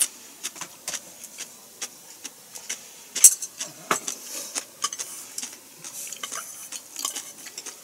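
Eating at the table: irregular light clicks and taps of utensils against dishes, with the sharpest click about three seconds in.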